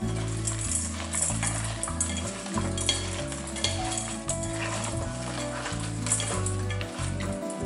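Hands tossing sliced Korean zucchini with salt in a stainless steel bowl: an irregular crackling rustle of the pieces and salt against each other and the metal. Background music with a steady bass line plays underneath.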